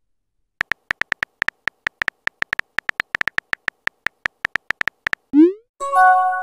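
Simulated phone-keyboard typing clicks from a texting-story app, a rapid uneven run of short ticks. Near the end comes a quick rising swoop, the message-sent sound, followed by a short electronic chime of several steady tones.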